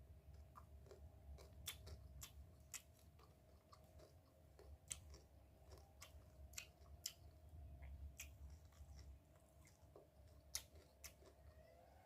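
Quiet chewing and crunching of fried paddy crabs, with irregular crisp clicks as the crispy shells break between the teeth.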